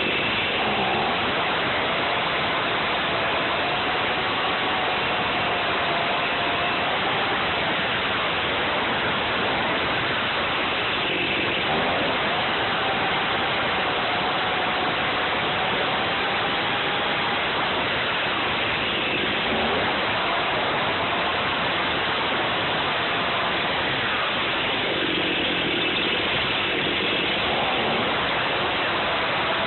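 Stihl MS261C two-stroke chainsaw running hard while cutting limb wood, heard from a camera mounted on the saw as a steady dense hiss with a faint engine whine. The whine dips in pitch a few times as the chain bites into the wood.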